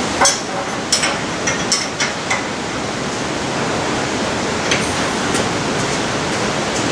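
A steady rushing hiss throughout, with a quick cluster of light metallic clicks and knocks in the first couple of seconds and a few more later, as a spanner works the levelling adjuster at the foot of a metal lathe.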